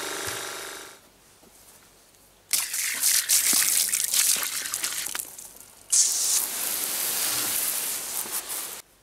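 Electric pressure washer humming steadily, stopping about a second in; then water jetting and splashing from its hose line in two loud hissing spells, each cutting off abruptly.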